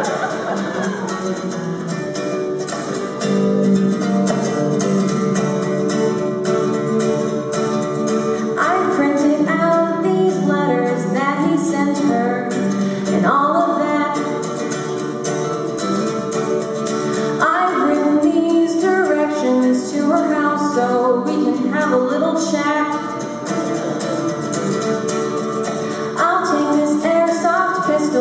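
Ukulele strummed steadily in a song accompaniment, with a woman's voice singing over it in stretches, about a third of the way in, past the middle and near the end.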